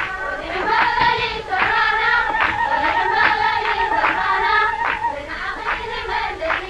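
A group of women singing together in a marching procession, a drum beating steadily about once every 0.8 seconds under the voices, with a long wavering high trill held through the middle.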